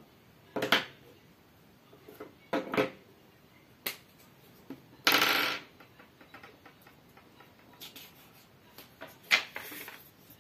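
Sheet of paper being handled, folded and unfolded on a desk, heard as five short rustles and a click. The longest rustle comes about five seconds in.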